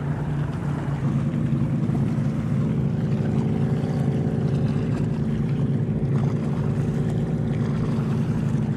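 A motor running steadily: a low drone with a stack of even tones, growing a little fuller about a second in.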